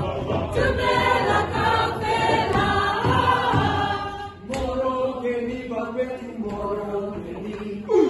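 A mixed staff choir singing an unaccompanied, chant-like repeated refrain, with a short drop in the voices about halfway through before they carry on.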